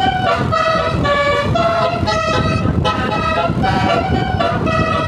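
Tourist bus's 'telolet Basuri' musical horn playing a quick tune: a string of short, loud horn notes that change pitch every fraction of a second, over a rumble of engine and street noise.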